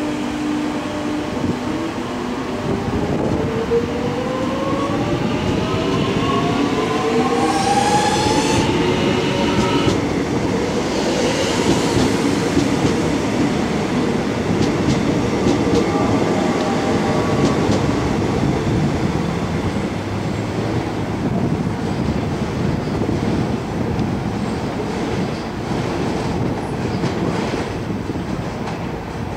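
Alstom X'trapolis electric multiple unit pulling away from the platform. Its traction motors give a whine of several climbing tones over the first ten seconds or so as it gathers speed. The whine then gives way to the rumble and clatter of the wheels over the rails as the carriages pass.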